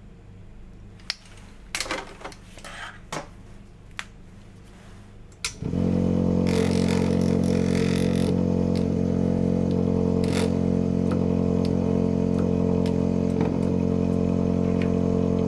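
Vortex-Genie 2 vortex mixer running steadily for about ten seconds with a small plastic tube pressed on its cup, mixing a soil-sample dilution in Ringer solution, then stopping suddenly near the end. Before it starts come a few light clicks from handling the pipette and tube.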